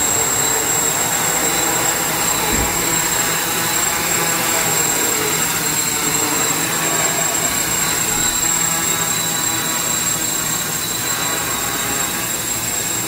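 A quadcopter's four Emax brushless motors driving 10-inch propellers as it lifts off and hovers: a steady, loud whirring buzz with faint tones that drift up and down.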